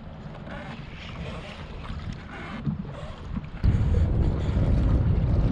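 Wind rumbling on the microphone of a kayak out on open water; about two-thirds of the way through, the rumble suddenly gets much louder.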